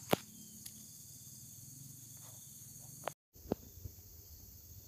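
Steady high-pitched chorus of insects, with a sharp click just after the start and a brief dead gap about three seconds in.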